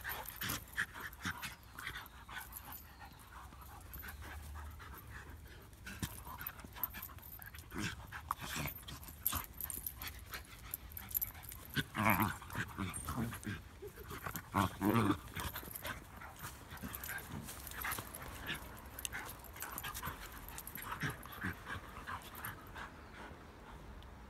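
Two dogs, a Shiba Inu and a curly-coated poodle-type dog, play-fighting on grass: panting and scuffling throughout, with two louder bursts about twelve and fifteen seconds in.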